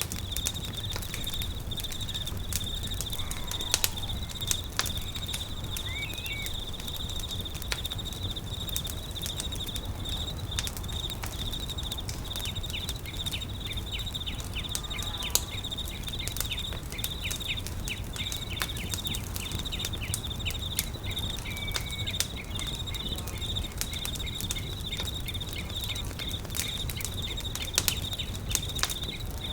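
Campfire crackling with scattered sharp pops, over a steady high chirring of insects such as crickets and a low steady rumble. A couple of short chirps stand out, about six seconds in and again past the middle.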